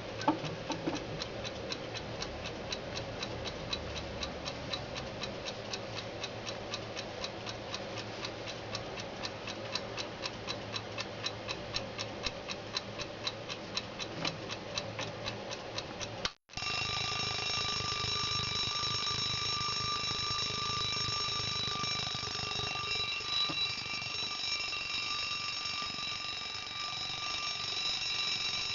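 Mechanical alarm clock ticking fast and evenly. About sixteen seconds in, after a brief break, its alarm goes off in a continuous ringing with several steady high tones.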